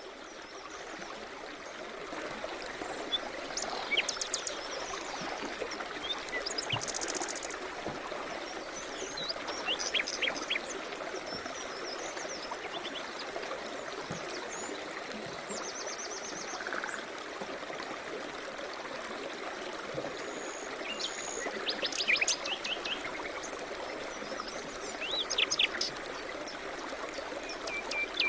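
Birds chirping and trilling in short, scattered calls over the steady rush of a flowing river.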